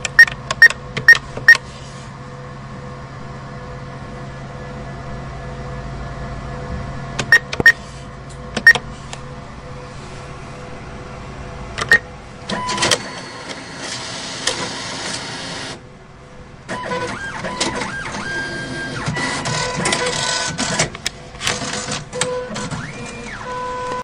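ATM keypad presses, each with a short beep: four quick ones, then three more, then one more, over the machine's steady hum. Then the ATM's internal mechanism whirrs and clatters in two long runs, with a brief pause between them and a few short electronic tones, one rising near the end.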